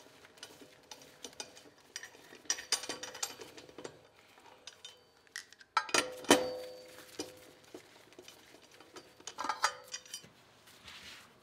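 Lug wrench clinking and clicking on the lug nuts as they are loosened and spun off an aluminium wheel, with one sharper metallic clank about six seconds in that rings briefly.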